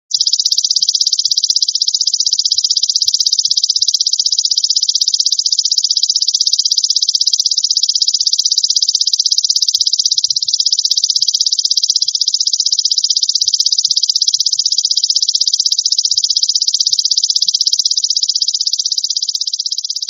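Belalang emas (golden grasshopper) stridulating: a continuous, high, very rapidly pulsing buzz.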